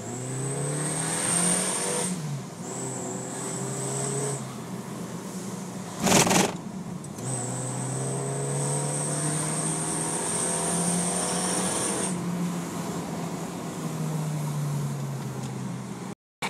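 Toyota Rush engine revving with a turbo whistler exhaust tip fitted: a high steady whistle comes in on top of the engine note three times, each lasting a few seconds, the longest about five seconds. About six seconds in there is a short, loud rush of noise, the loudest moment.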